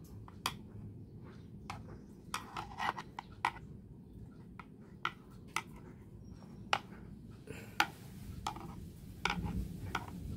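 Irregular light clicks and taps as the cordless pressure washer's plastic housing and its screws are handled.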